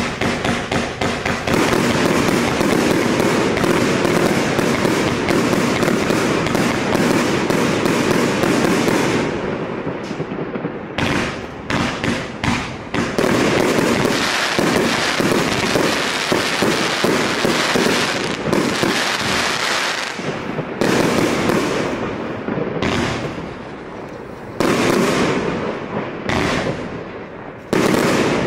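Multi-shot firework cake firing: a dense, rapid run of shots and bursts for about the first nine seconds, then volleys in separate groups with short gaps between them.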